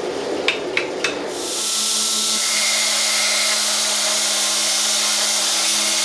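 A few light metal taps as a drift is worked through the hot eye of a forged steel pickaroon head. About a second and a half in, a belt grinder starts grinding the steel: a steady loud hiss of the abrasive belt on steel over the motor's hum.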